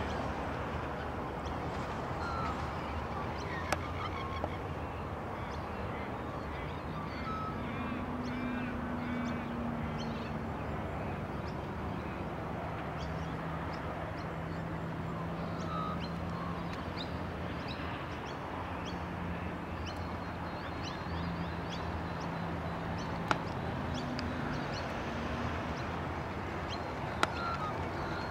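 Outdoor ambience: birds calling repeatedly over a steady background rush, with a low hum through the middle and a few sharp clicks.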